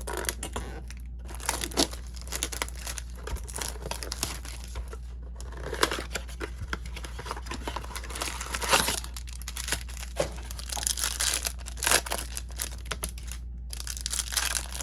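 Topps baseball card packaging being torn open and crumpled, with plastic and foil wrappers tearing and crinkling in quick irregular crackles over a low steady hum.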